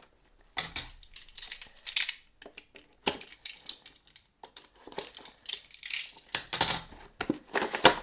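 Cardboard booster box and its packaging being opened and handled by hand: a busy, irregular run of crisp clicks, rustles and scrapes.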